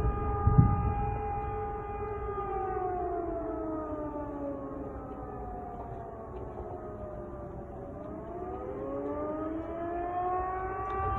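Air raid siren wailing. It holds one pitch for a couple of seconds, slides slowly down over several seconds, then climbs back up near the end.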